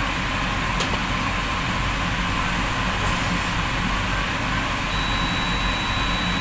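A steady low machine hum under a constant rushing noise. There is a single faint click about a second in, and a thin high whine comes in near the end.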